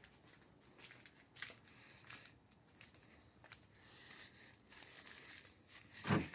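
Faint scattered rustles and small clicks, then near the end a louder clunk as the pickup's door handle is pulled and the latch releases.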